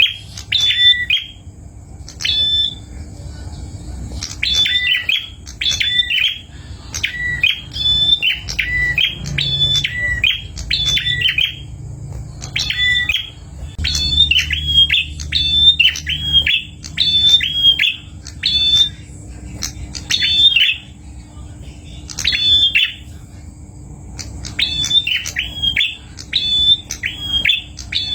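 A prenjak (prinia) calling: quick runs of sharp, repeated chirping notes, broken by short pauses, over a faint steady hum.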